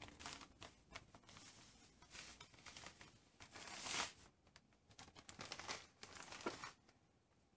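Sugar bag crinkling and rustling as it is handled and opened, then granulated sugar poured into a bowl on a scale, a hiss that swells and peaks about four seconds in. Quiet throughout.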